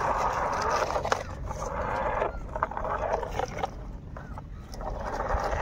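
Plastic wheels of a toy truck and jeep rolling and scraping over sandy dirt as they are pushed by hand. The scraping comes in stretches of a second or two, with a few small clicks and short pauses between pushes.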